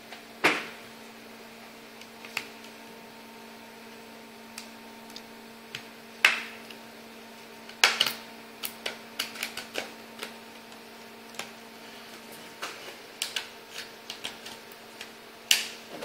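Plastic snap clips of a Lenovo IdeaPad S10-3s netbook's case clicking and popping as the top cover is pried off the base: scattered sharp clicks, the loudest about half a second in, around six and eight seconds in and near the end, with a run of smaller clicks in between.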